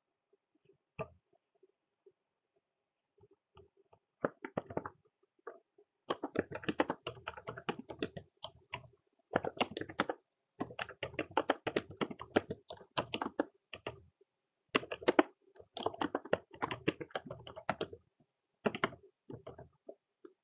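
Typing on a computer keyboard: quick runs of keystrokes with short pauses between them, after a single click about a second in.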